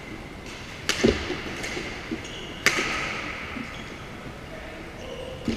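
Badminton rally: two sharp racket hits on the shuttlecock, about a second in and nearly three seconds in, each echoing in the hall, with a low thud just after the first.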